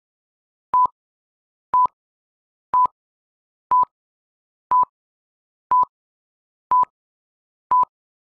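Film-leader countdown beeps: a short, high, pure beep once a second, eight times, each one clicking on and off, with silence between.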